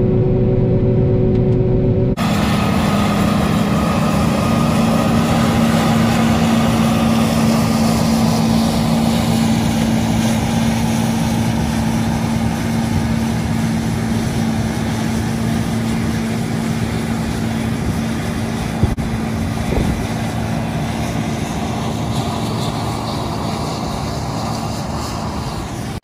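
Combine harvester running while unloading, heard from the cab. About two seconds in it cuts to a John Deere tractor with a grain cart, its engine running at a steady note.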